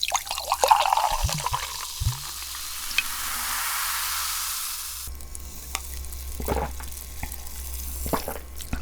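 Sparkling water poured into a glass, fizzing with a hiss that swells and fades over about five seconds, followed by a few small clicks and taps.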